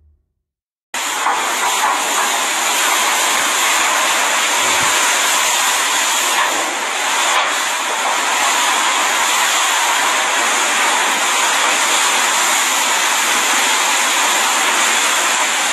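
Hurricane-force wind and driving rain: a loud, steady rushing hiss that starts abruptly about a second in.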